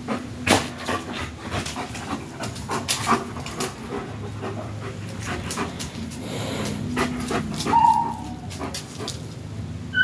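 German Shepherd dog panting and whimpering, excited at an iguana up a tree that it cannot reach, with a run of short clicks and scuffs as it scrabbles about. A brief high whine comes about eight seconds in.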